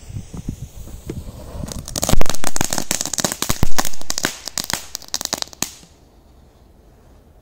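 Korsar-4 firecracker with a crackle effect going off. Its fuse hisses, then about two seconds in a dense rapid crackling starts, with two loud bangs about a second and a half apart. The crackling stops suddenly about six seconds in.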